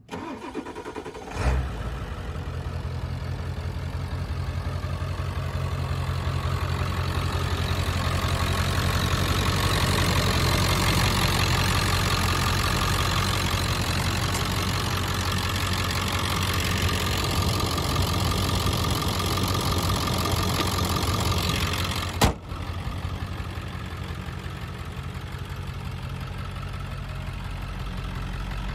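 1999 Ford F250's 7.3-litre Power Stroke V8 turbo diesel starting about a second and a half in, then idling steadily. A single sharp click sounds about two-thirds of the way through.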